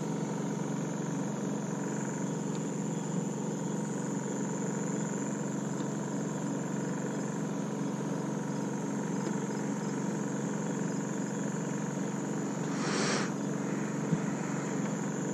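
Engine running steadily on the boat, a constant drone. A brief rush of noise comes about two seconds before the end, followed by a single sharp click.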